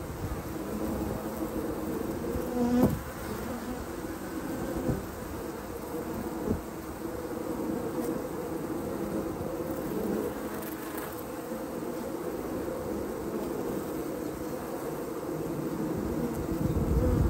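Honey bees humming at a hive entrance: the steady wing buzz of many workers crowding the landing board. It swells briefly louder about three seconds in and again near the end.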